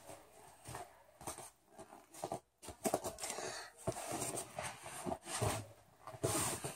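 Irregular thumps, knocks and rustling of a child's body, hands and clothing moving on a gym mat during a backward roll into a push-up position, with a brief gap of silence about two and a half seconds in.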